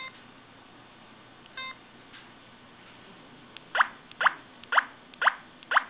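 Electronic sound effects from an IM-6100 mobile phone: a short beep, a second one about a second and a half later, then five quick downward-sliding blips about two a second.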